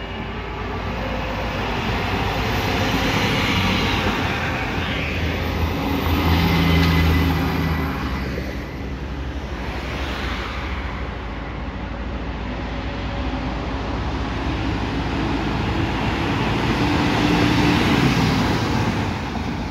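Fire trucks driving past on an emergency run: heavy diesel engines and tyre noise swelling as each goes by, loudest about seven seconds in and again near the end as a turntable ladder truck passes close.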